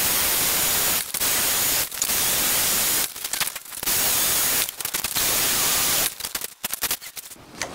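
Heat gun blowing a steady rush of hot air onto a Kydex plastic strip to soften it for bending. The hiss cuts out suddenly for short moments several times, most of all near the end.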